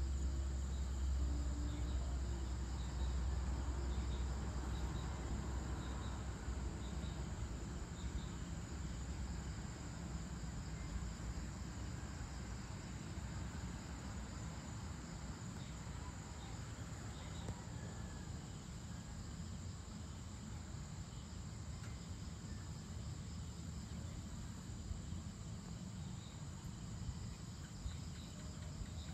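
Steady chorus of crickets and other insects trilling, over a low rumble that is strongest in the first few seconds.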